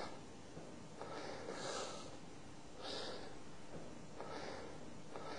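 Heavy breathing: a noisy, forceful breath about every second and a half, in and out.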